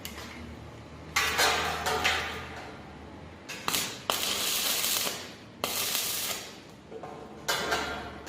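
A power metalworking tool working steel in five short bursts, each starting suddenly and fading out after up to about a second, over a low steady hum.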